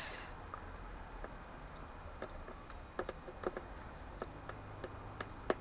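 Faint, scattered small clicks and light knocks, irregularly spaced, from handling a CD/DVD drive being taken apart by hand.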